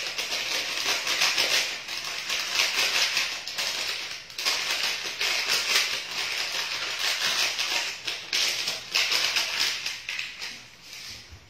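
Rapid, continuous rattling and scraping as coffee is made by hand, in three long stretches broken by short pauses about four and eight seconds in, fading near the end.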